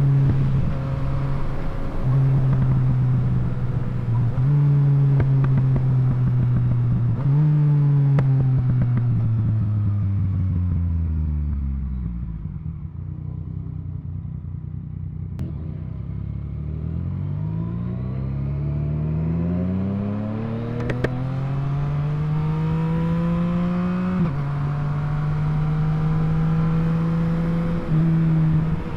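Yamaha MT-09's inline three-cylinder engine under riding: its pitch steps up a few times early on, then falls steadily to near idle as the bike slows about halfway through. It then climbs again under acceleration, drops sharply at a gear change about 24 seconds in, and holds steady after.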